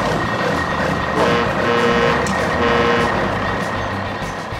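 Heavy truck engine running steadily, with a reversing alarm beeping a few times in the middle.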